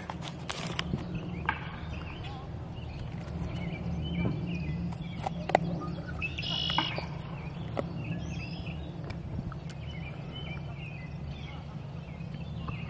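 Birds chirping over a steady low drone of airplanes flying in the distance, with a few soft clicks.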